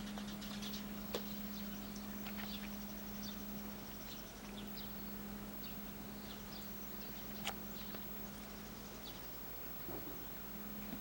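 Cat grooming after eating, licking its paw and washing its face: a scatter of small wet licking clicks and smacks, with a couple of sharper ticks. A steady low hum runs underneath and drops out briefly near the end.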